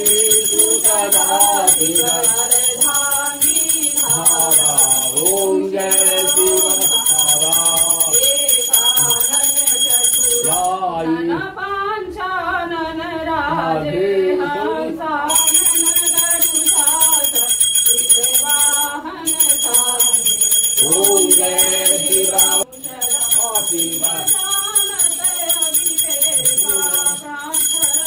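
A Hindu aarti sung as a devotional chant with a melody, a puja bell ringing continuously over it. The bell stops for about four seconds near the middle while the singing goes on.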